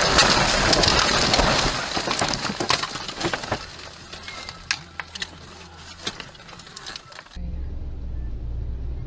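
A car crashing through roadside bushes and trees: a dense crashing and scraping of branches against the body and windscreen that dies away over about three seconds into scattered clicks and rattles of debris. About seven seconds in it cuts off abruptly, replaced by a steady low engine and road hum from inside a moving car.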